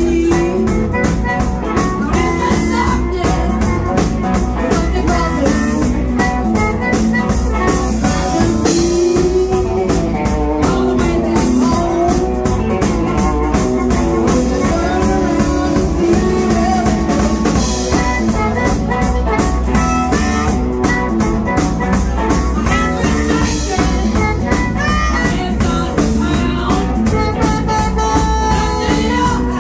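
Live blues band playing with electric guitar, electric bass, drum kit and harmonica, loud and continuous with a steady beat.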